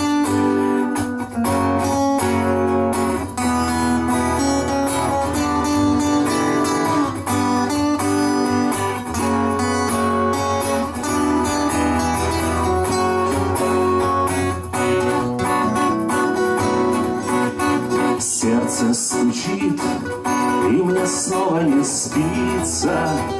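Guitar music, the instrumental introduction of a song, with a steady low bass under it. A voice starts singing right at the end.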